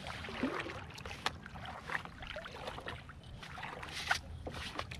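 Kayak paddle strokes: the blades dipping and splashing in calm water, with a few light knocks.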